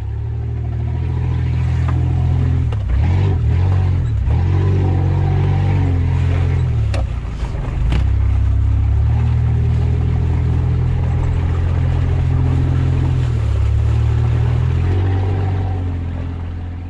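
Off-road 4x4's engine running as the vehicle drives a rough trail, heard from a camera mounted on the vehicle; the revs rise and fall several times around three to four seconds in and again near seven seconds. Two sharp knocks come about seven and eight seconds in.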